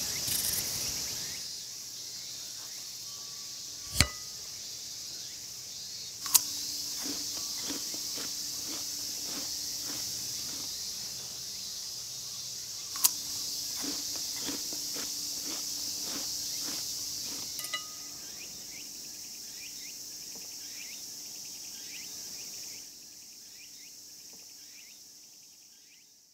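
Insects chirring in a steady, high, even chorus. A few sharp knocks or clicks stand out over it, the loudest about four and six seconds in. The chorus drops and fades out near the end.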